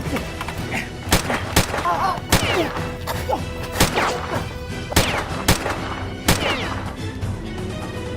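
Gunshot sound effects, about seven single shots spaced irregularly over several seconds, some followed by a short falling ring, over background music.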